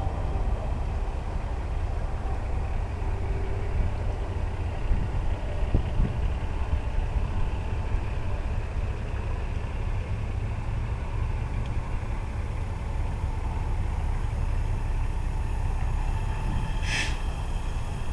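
Semi truck's diesel engine running steadily with a low rumble, and a brief high hiss near the end.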